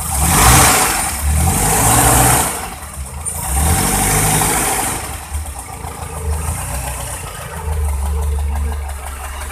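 Toyota Corolla DX engine, its points ignition now fired through a Suzuki Shogun motorcycle CDI, revved three times in quick succession and then settling back to a steady idle. The idle runs clean and even on this ignition.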